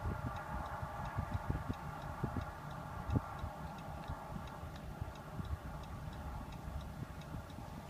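A fast, even mechanical ticking, several ticks a second, over a steady hum, with irregular low thumps underneath.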